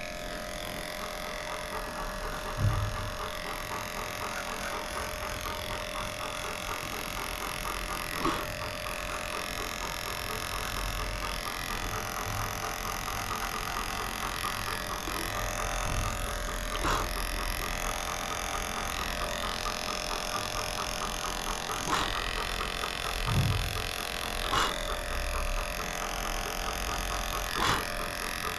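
Cordless Heiniger dog clipper running with a steady hum as it shaves a Bernese mountain dog's paw pads. A few brief knocks and thumps break in along the way.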